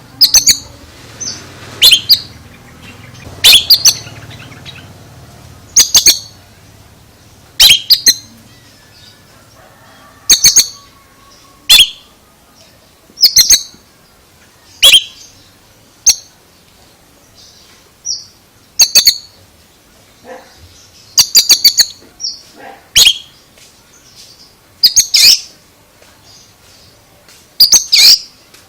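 An Oriental magpie-robin (kacer) calls in short, loud, high-pitched bursts, repeated every one to two seconds.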